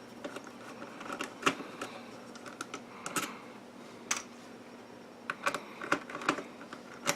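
Irregular light clicks and taps of small parts and tools being handled, as a clipped-down ceramic hybrid is worked loose from an oscilloscope circuit board.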